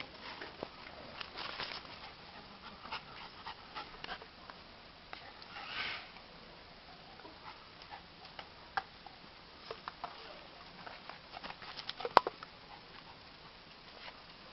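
A dog and a fox moving about close by: scattered light taps and clicks with sniffing, a short rustle about six seconds in, and one sharp click near the end.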